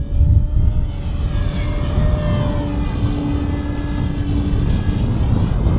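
Electric RC aerobatic plane (E-flite Extra 300 3D) flying overhead, its brushless motor and propeller whining, the tone wavering as the throttle changes and the plane moves about the sky.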